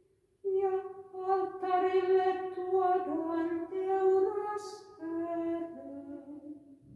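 A woman singing solo and unaccompanied, in long held notes that step from pitch to pitch. After a short pause at the start, the phrase moves lower in its second half and ends just before the close.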